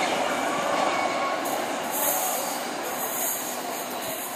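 Freight train of container wagons running along the rails. The sound fades as the last wagon passes and the train draws away.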